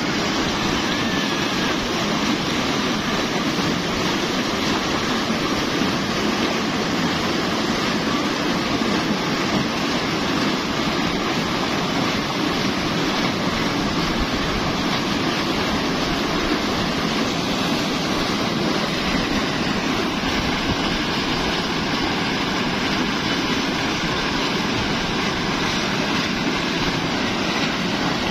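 Heavy gush of water pouring from a large pump discharge pipe and splashing into a brick tank: a loud, steady rush. The pump's motor runs underneath it.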